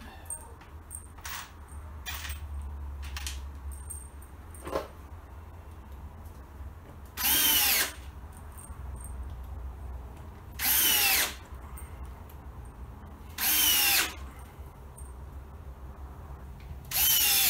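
Power drill run in four short bursts, each under a second and a few seconds apart, drilling or driving screws into plastic beehive box panels. The pitch falls during each burst. A few light clicks of handling come before the first burst.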